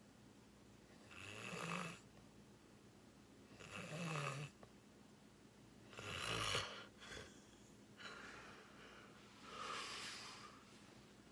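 A sleeping person snoring: three short snores about two and a half seconds apart, then a longer, softer breath out near the end.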